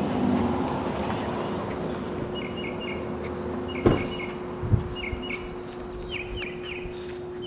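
A bird chirping in quick runs of two or three short high notes, repeated every second or so over a steady hum. A single sharp knock comes about four seconds in.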